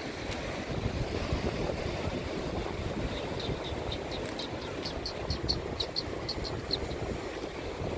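Wind buffeting the microphone over the steady wash of surf breaking on a sandy beach. In the middle, a run of short high chirps, about three or four a second, lasts for a few seconds.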